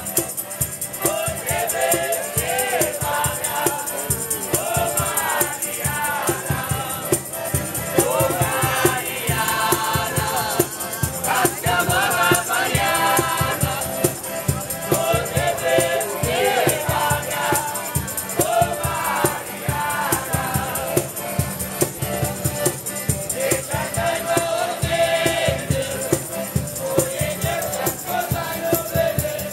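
Street band playing acoustic guitars and an accordion, with several voices singing together over a fast strummed rhythm.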